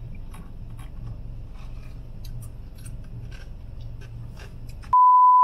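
Steady low hum inside a parked car, with scattered small clicks and rustles as an iced drink in a plastic cup is handled and sipped. Near the end a loud electronic bleep of one steady pitch sounds for about a second.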